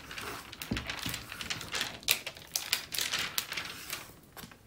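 Thick plastic cover film being peeled back off a diamond painting canvas's extremely tacky double-sided adhesive, crackling with a rapid, irregular run of sharp clicks and ticks.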